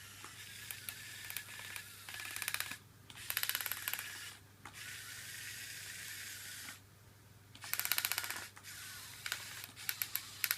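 Small electric drive motors of a toy RC Komatsu PC1250 excavator whirring, broken three times by bursts of rapid ratcheting clicks as its small track gears slip.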